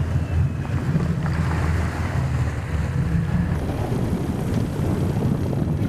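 Amphibious assault vehicles' engines droning steadily as they swim through the sea, with water washing around the hulls and wind buffeting the microphone. The sound shifts abruptly a little past halfway.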